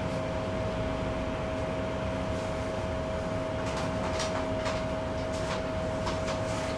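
Tram running, a steady hum with a constant whine, and a few light clicks from about halfway through.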